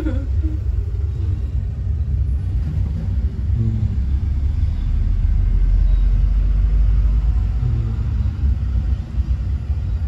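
Steady low rumble inside a moving gondola cable car cabin, swelling a little about halfway through.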